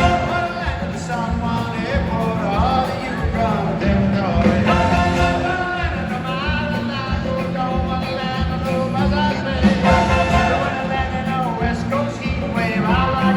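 Live band music with a steady drum beat, bass and a lead melody over it.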